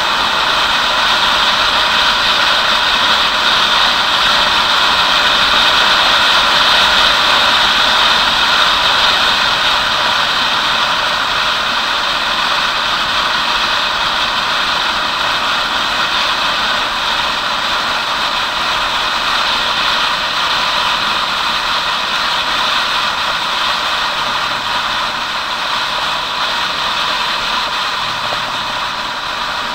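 Wind rushing over the microphone with a motorcycle engine running at steady cruising speed, heard from the moving bike. It gets slightly louder over the first several seconds, then eases off a little.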